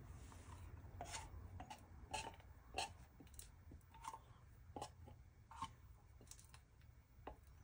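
Silicone spatula scraping sweetened condensed milk out of an upturned metal can: a run of short, irregular scrapes and taps against the can.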